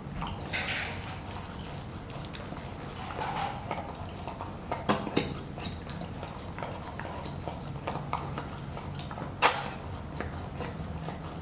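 Pomsky puppy licking and chewing at a stuffed rubber Kong toy: small wet licks and smacks, with three sharp knocks of the toy, two about halfway through and the loudest near the end.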